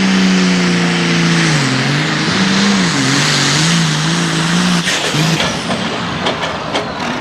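Hot farm class diesel pulling tractor running at full throttle under load. Its engine pitch dips and surges several times as it works against the sled, then the engine note drops away about five seconds in, followed by a few sharp clicks.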